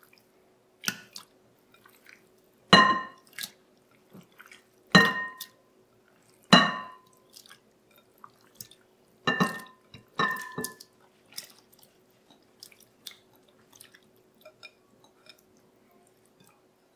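Glass bowls clinking together several times, each clink ringing briefly, as cubed whitefish is tipped from one glass bowl into another holding salt-water brine. Between the clinks come small wet plops and splashes of fish chunks dropping and being pressed into the brine, fading to light faint ticks in the second half.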